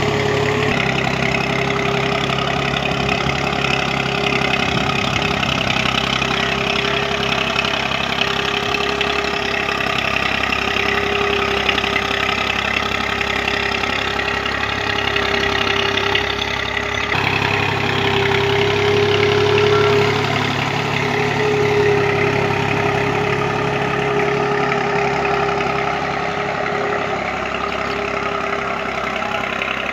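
A farm diesel engine running steadily, with a constant hum over a low rumble. The rumble shifts abruptly about 17 seconds in.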